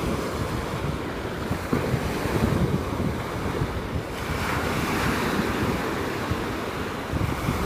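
Small sea waves washing onto the shore, one wash swelling about halfway through, with wind buffeting the microphone.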